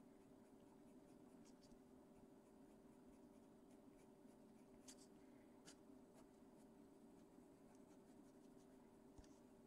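Very faint scratching of a Caran d'Ache Pablo coloured pencil stroking across paper, over a steady low hum, with a couple of light ticks about five seconds in.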